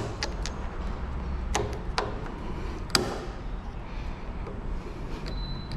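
A few sharp metal clicks and light knocks as a U-joint bearing-cap retaining clip is worked free with tools. The loudest comes about three seconds in.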